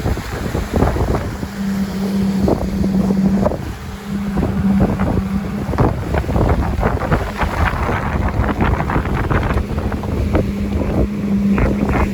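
Motor launch under way: its engine runs with a steady low hum that sets in about a second and a half in, under heavy wind buffeting on the microphone.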